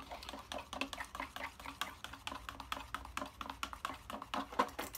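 A kitchen utensil stirring plaster of Paris and water in a cup, rapid clicking and scraping against the cup as the powder is worked until saturated.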